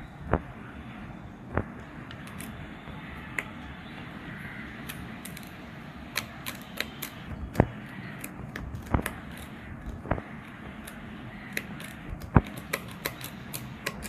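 Handling noise from a GoPro action camera on its mount being held and turned in the hand: irregular sharp clicks and taps, sparse at first and then in small clusters, over a steady low hiss.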